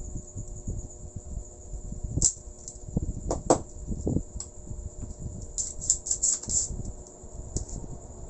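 Desoldering work on a CRT TV circuit board: a few sharp clicks and taps, the loudest about halfway through, and brief clusters of high crackles, over a steady low background noise and a faint constant high whine.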